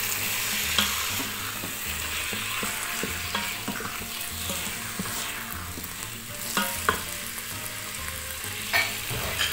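Diced chicken breast sizzling in hot oil in an electric pressure cooker's inner pot on its sauté setting, stirred with a wooden spoon that scrapes and knocks against the pot several times.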